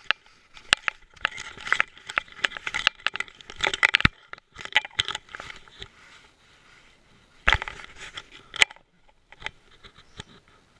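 Close, irregular rubbing, scraping and clicking from a camera strapped to a dog's neck, as fur and the strap shift against it while the dog moves. It quietens about halfway through, with a loud knock and then a sharp click near the end.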